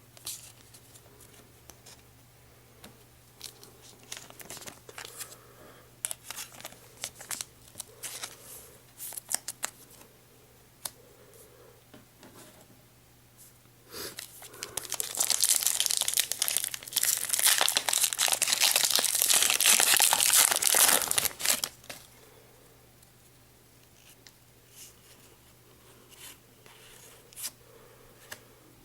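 Foil Pokémon booster pack wrapper torn open and crinkled, loud for several seconds about midway. Before and after it, light rustling and clicks of trading cards being handled.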